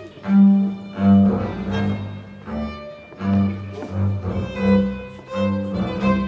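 Double bass and violin playing a tune together, the bass marking a steady beat of low notes about one and a half times a second, with the violin's line above.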